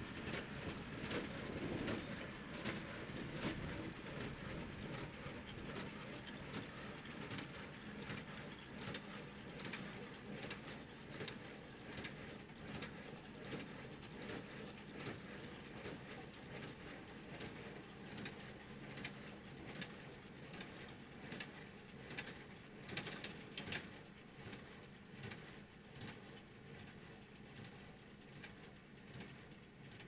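Small square baler working behind a John Deere tractor: a run of mechanical clicks and clacks from the baler over a steady engine hum, growing fainter toward the end as the rig moves away.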